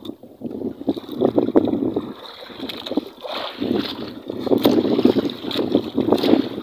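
Water sloshing and slapping against the hull of a small fishing boat, in uneven splashes and knocks, with wind buffeting the microphone.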